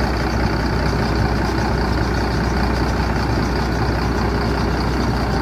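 Mercedes-Benz OH 1526 bus's six-cylinder diesel engine running steadily at low revs as the bus rolls slowly.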